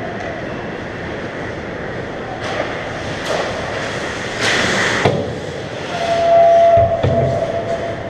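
Ice hockey play heard at the goal: skate blades scraping and spraying on the ice in several sharp rushes, with a hard clack about five seconds in, over a steady rink rumble. A steady mid-pitched tone sounds over the last two seconds.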